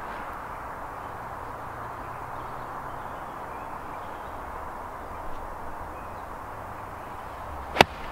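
A golf iron strikes the ball once near the end: a single sharp, loud crack of an approach shot. Before it there is only a steady outdoor background hiss.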